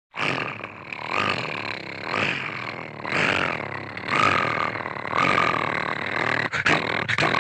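Cartoon dog sound effect: a rough, gravelly dog vocalization that swells and eases about once a second. It starts suddenly out of silence.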